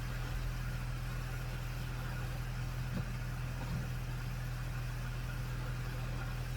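Steady low hum of a car engine idling, with a couple of faint taps about halfway through.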